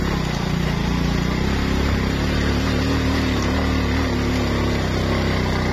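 Motorbike engine running steadily as it rides along a dirt track, with a low, even drone; its pitch wavers slightly about halfway through.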